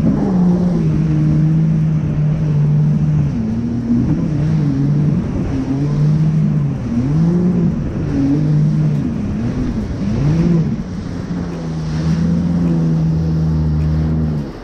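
Yamaha VX Deluxe personal watercraft engine running under way over ocean chop, its pitch dipping and rising every second or two as the throttle and hull work the swells, then holding steady for the last few seconds. A constant rush of wind and water runs under it.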